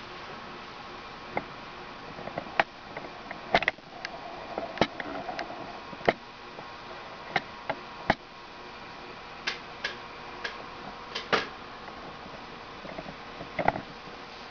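Geyser lamp with irregular sharp clicks and pops from its heated base, as the water inside starts to boil, over a steady faint hum and hiss.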